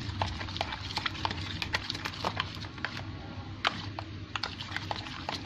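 Glue-and-lotion slime being stirred in a bowl as the borax activator sets it: many small, irregular clicks and wet ticks from the stirring, over a steady low hum.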